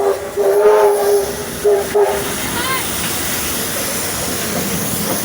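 NSWGR R-class steam locomotive R766's whistle blowing three blasts, short, longer, short, in the first two seconds, followed by a steady hiss of steam.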